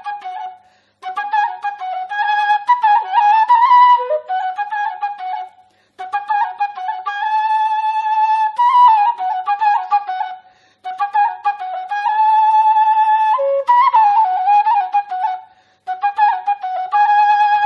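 Background music: a solo wind instrument plays an ornamented melody in phrases of about five seconds, with brief pauses between them.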